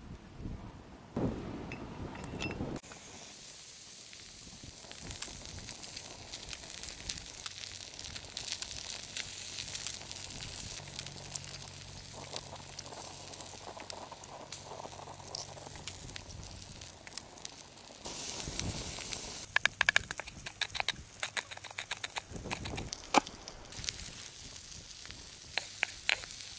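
Food frying in a cast-iron skillet over a campfire: a steady sizzle full of small crackles, with scattered taps and clicks.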